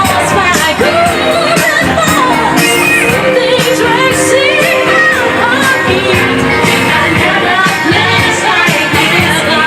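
Loud black-music flashback track playing, with sung vocals over a steady drum beat.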